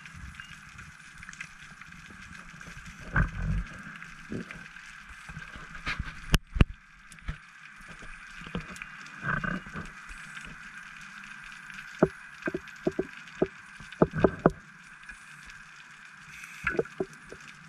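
Underwater scuba breathing: bursts of exhaled bubbles gurgling about every five to six seconds, with scattered sharp clicks and pops between them.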